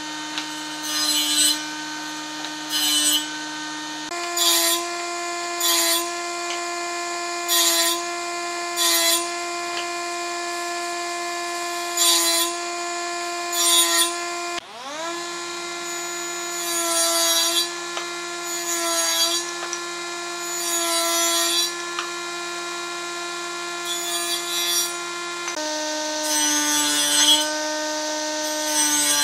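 An electric woodworking power tool's motor runs with a steady whine while it cuts wood, with short bursts of cutting noise every second or two as the wood is worked. About halfway through the motor stops and spins back up.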